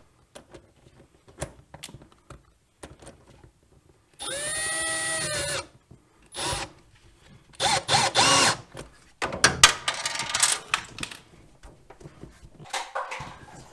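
Power drill running in several short bursts: its motor whine winds up, holds steady for about a second and a half, and winds down, then comes back in shorter, varying bursts, with clattering handling noise between them.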